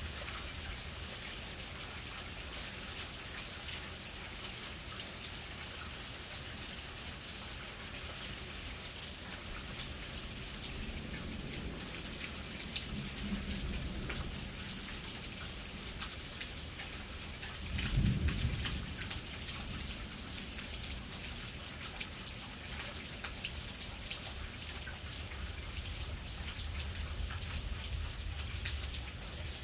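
Thunderstorm: steady rain hiss throughout, with a low rumble of thunder building about eleven seconds in and a louder, short burst of thunder about eighteen seconds in, then more low rumbling near the end.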